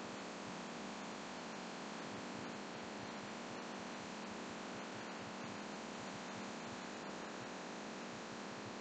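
Laminar flow hood's blower running steadily: an even rushing hiss with a low hum, and faint small ticks now and then.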